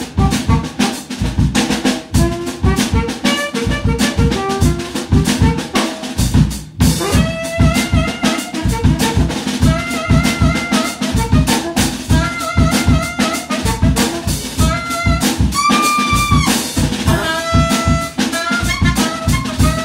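Background music: an up-tempo brass-and-drum-kit tune with a steady, quick beat.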